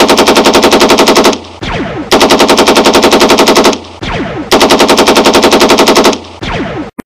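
Machine-gun fire sound effect: three long bursts of rapid automatic shots, about a dozen a second, with short pauses between them. In each pause a fainter sound falls in pitch.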